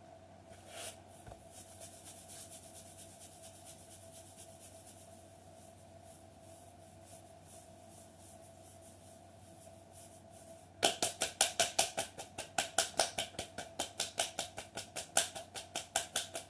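Hands working the lower legs in a self-massage. First comes a faint, quick, even rubbing, then from about eleven seconds in a loud run of rapid strokes at about five a second. A faint steady hum runs underneath.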